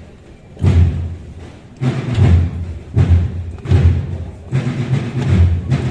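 A deep, muffled drum beating a slow procession march, about one beat a second, the beats coming a little closer together near the end.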